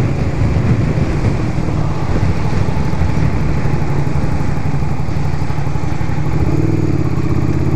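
Motorcycle engine running steadily while riding at road speed, with wind rushing over the helmet-mounted microphone.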